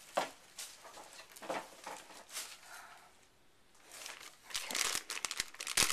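Clear plastic bag crinkling as hands handle it: scattered rustles at first, nearly quiet around the middle, then steady crinkling over the last second and a half with a loud rustle near the end.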